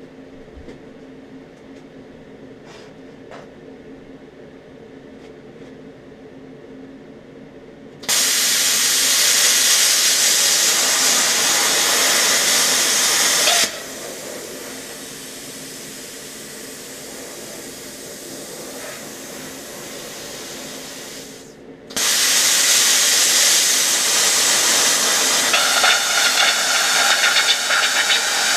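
Plasma cutter's compressed air rushing through the torch: a loud, even hiss starts suddenly, drops after about five seconds to a quieter hiss of post-flow air, cuts out briefly, then comes back loud and turns rougher near the end.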